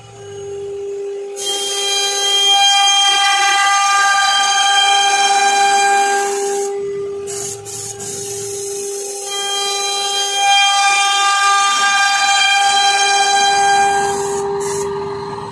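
CNC router spindle whining steadily as it carves a wooden column turning in the rotary axis, with compressed air hissing from a blow gun clearing the chips; the air hiss stops briefly near the start, about seven seconds in and near the end.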